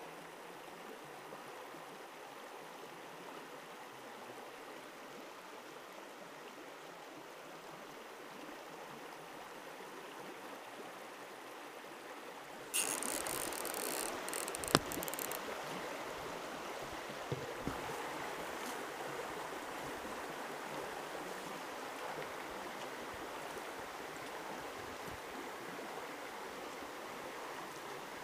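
Mountain stream water running steadily, getting louder about halfway through, with a few sharp knocks near the middle.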